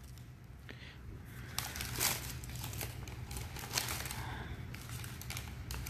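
Plastic snack-packet wrapper crinkling in short, scattered crackles as it is handled.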